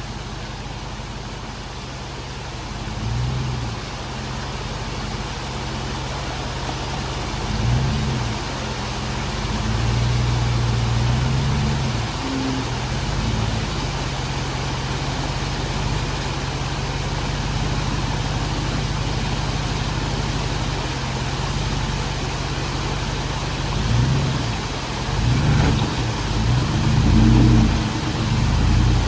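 Jeep Wrangler JL's 6.1-litre Hemi V8 running at low speed, with brief blips of throttle a few times early on and a quick series of revs near the end as it climbs a rock ledge.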